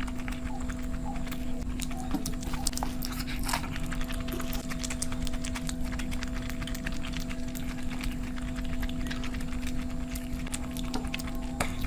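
Close-miked eating sounds: chewing and small wet mouth clicks at an irregular pace, over a steady electrical hum.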